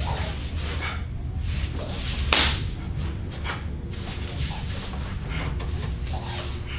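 Sharp snaps and slaps from a kenpo form done empty-handed: uniform sleeves cracking and hands striking, the loudest crack about two seconds in. A steady low hum runs underneath.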